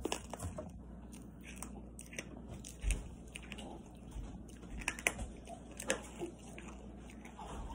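Faint sticky clicks and soft taps from fingers poking and pressing a lump of soft white fluff slime on a wooden tabletop, with a few louder ticks near the middle.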